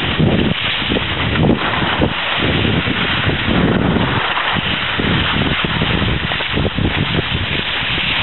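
Wind buffeting the microphone of a camera carried by a moving skier, in irregular low gusts, over a steady hiss of skis sliding on snow.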